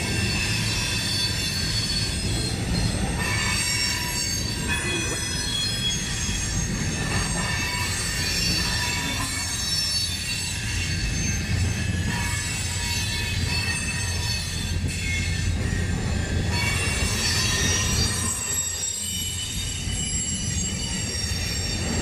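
Freight train's boxcars rolling past at a level crossing: a steady low rumble of wheels on rail, with high-pitched wheel squeal ringing over it.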